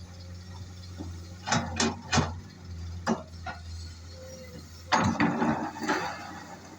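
Excavator engine running steadily, with a few sharp clanks and then a rattling clatter about five seconds in, from the machine working.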